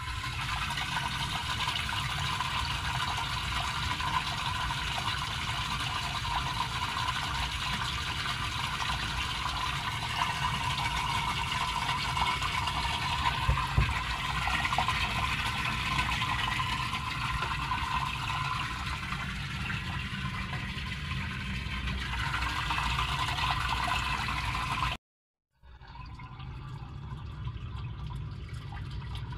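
Grey waste water rushing steadily out of a drain pipe and splashing into a concrete drain chamber: the flow that shows the blocked line has been cleared. The sound breaks off briefly near the end and comes back a little quieter.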